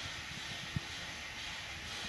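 Steady background hiss with one brief low knock about three-quarters of a second in.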